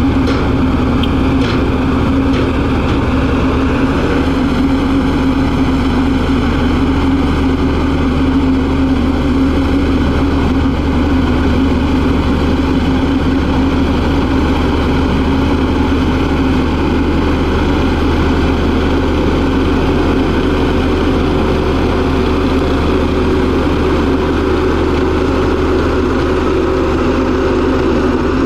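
LiuGong single-drum vibratory roller's diesel engine running steadily at close range, a constant unbroken drone.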